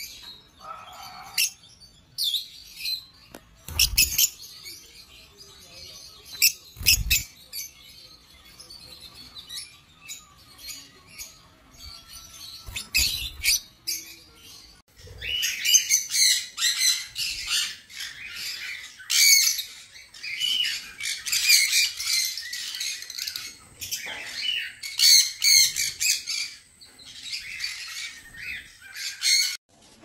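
Small pet parrots squawking and chirping: scattered sharp calls through the first half, then a near-continuous run of loud, harsh squawks from about halfway until just before the end.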